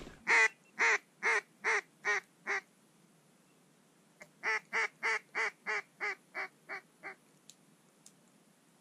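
Two descending runs of mallard hen quacks: six loud quacks, a pause of about a second and a half, then about ten quicker quacks that fade toward the end, the pattern of a hen mallard's descending call.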